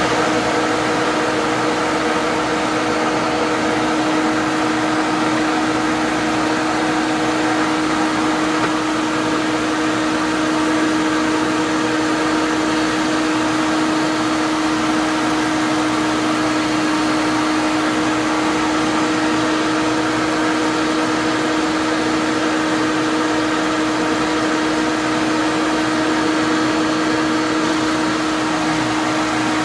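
Drill press running at a steady speed with a plug cutter spinning in its chuck: an even motor hum that holds one pitch.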